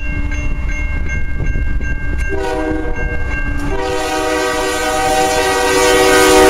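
Air horn of lead locomotive UP 5626 sounding a chord of several tones: a short blast about two seconds in, then a long blast that grows louder as the train approaches, over the low rumble of the passing train.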